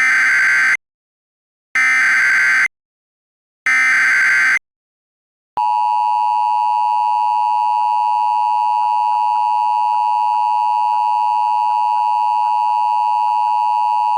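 Emergency Alert System tones: three short buzzing bursts of the SAME digital header, each just under a second long with about a second of silence between them. About five and a half seconds in, the steady two-tone EAS attention signal starts and holds.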